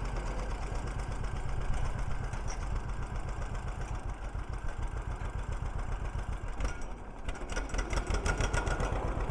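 John Deere 50 tractor's two-cylinder engine running at low speed as the tractor creeps along, with a steady, evenly pulsing exhaust beat. The beat dips briefly about seven seconds in, then comes back a little louder.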